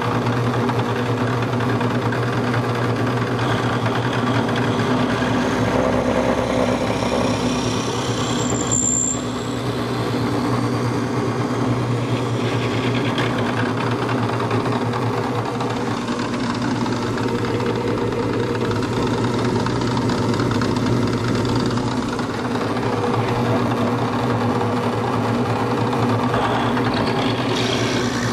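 Delta drill press running steadily, its bit boring lengthwise down the centre of a wooden dowel held in a block. There is a brief high squeak about nine seconds in.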